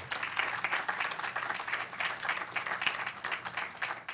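Audience applauding, a dense patter of many hands clapping that begins to fade near the end.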